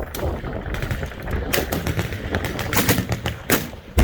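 Gunfire on a firing line: scattered single reports roughly a second apart, the loudest about one and a half seconds and three and a half seconds in, over a continuous low rumble of distant firing.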